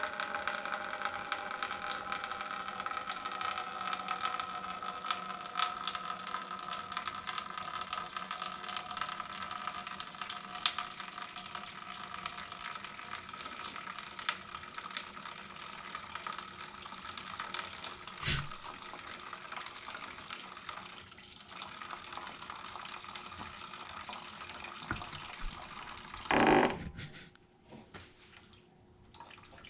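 Water running steadily out of a Craftsman generator's disconnected fuel line. The fuel system holds almost pure water, which the mechanic puts down to ethanol fuel. A short knock comes near the end, and the flow then stops.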